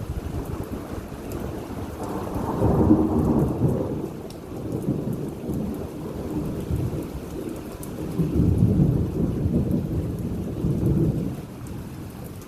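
Thunder rumbling in rolling swells over steady rain, loudest about three seconds in and again around nine seconds.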